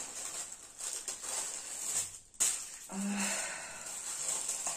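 Tissue paper rustling and crinkling as hands unfold the wrapping inside a cardboard gift box, with a short break and a sharp click about halfway through.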